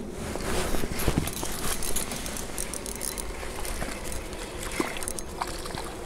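Wind buffeting the microphone, with irregular clicks and rustling as a spinning rod and reel are handled and the line is reeled in.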